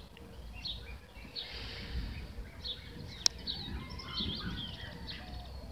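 Small birds chirping, with short calls scattered throughout, over a low steady outdoor background rumble. There is a single sharp click a little past three seconds in.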